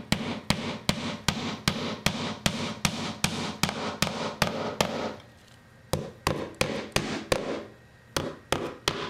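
Hammer driving the nails of a wooden carpet tack strip into the subfloor: sharp, steady strikes about two and a half a second, pausing briefly twice, about five and eight seconds in.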